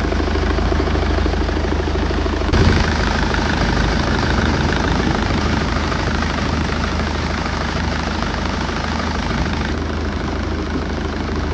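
BMW N47 2.0-litre four-cylinder turbodiesel idling steadily, heard close up in the open engine bay just after a cold-system refill and restart. There is a brief thump about two and a half seconds in.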